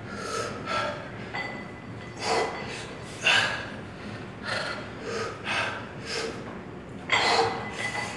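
A person breathing hard and forcefully in short gasps and blows, about one to two a second, as during the effort of a weight-training set.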